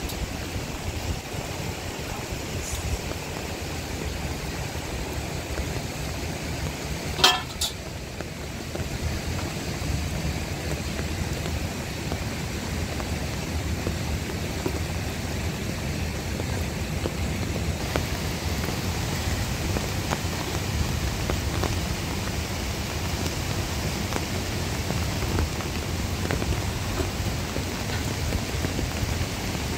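Heavy rain falling steadily, hissing a little louder in the second half. A single sharp click or knock about seven seconds in.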